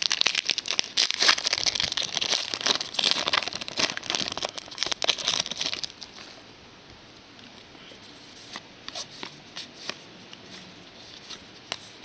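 A trading card pack wrapper crinkling and being torn open for about six seconds, then a few light clicks and rustles from the cards being handled.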